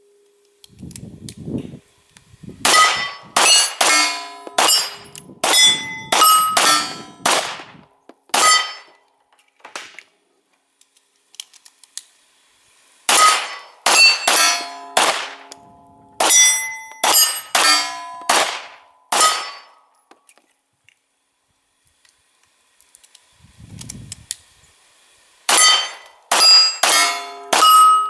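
Semi-automatic pistol firing light handloads in three strings of quick shots, each shot trailed by the clanging ring of a struck steel plate target. A faint low rumble comes about a second in and again just before the last string.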